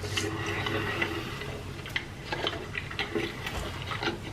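Close-miked chewing of a bite of spicy double cheeseburger: irregular soft clicks and smacks of the mouth.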